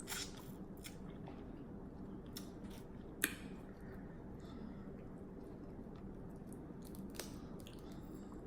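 Snow crab leg shells being cracked and snapped apart, a few sharp cracks with the loudest about three seconds in, along with soft chewing.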